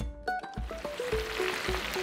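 Food sizzling in the hot oil of an electric deep fryer, a steady hiss that comes in about half a second in. Background music with a melody and a bass beat about twice a second plays along.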